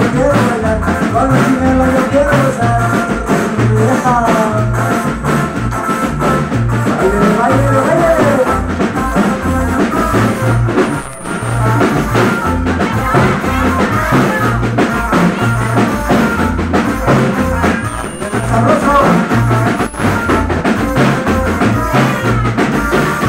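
A live dance band plays: a singer over a drum kit and a steady, repeating bass line.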